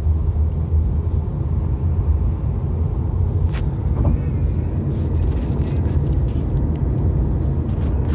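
Steady low rumble of a car driving at speed, engine and tyre road noise heard from inside the cabin.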